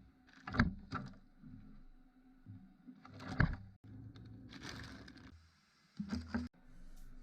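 A few knocks and clatters of things being handled and set down in a kitchen, with a short rustle about two thirds of the way in, over a low steady hum.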